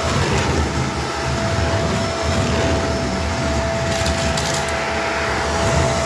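Vacuum cleaner running with a steady motor whine, sucking up dirt and grit that crackles and crunches as it goes.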